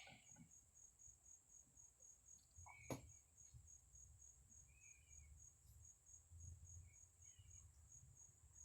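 Faint crickets chirping in a steady, evenly pulsed high trill, with a single sharp knock about three seconds in.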